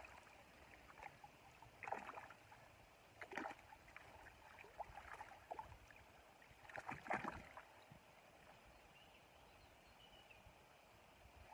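Faint splashing and sloshing of shallow river water as barbel are handled and released by hand: a few short splashes over the first seven seconds or so, then quieter.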